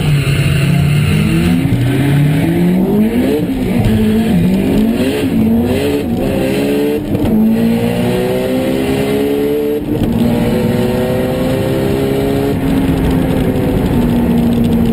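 Honda S2000's four-cylinder engine, heard from inside the cabin, held at revs and then launched hard down a drag strip: the note climbs and drops back at each upshift, then settles into a long pull in a higher gear.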